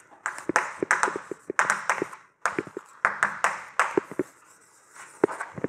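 Chalk tapping and scratching on a blackboard as words are written in quick strokes, in bursts of rapid clicks with short pauses between them.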